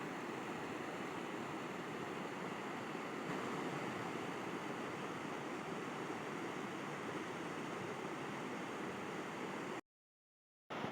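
River water rushing steadily as an even noise. Near the end it cuts to dead silence for just under a second, then comes back.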